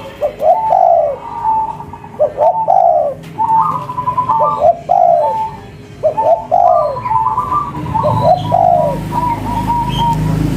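Spotted dove (tekukur) cooing, a repeated phrase of downward-sliding coos about every two seconds. A low hum grows in near the end.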